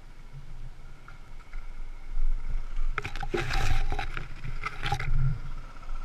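Dual-sport motorcycle engine running at low revs as the bike rides through a muddy water hole, with loud splashing of water and mud from about three to five seconds in.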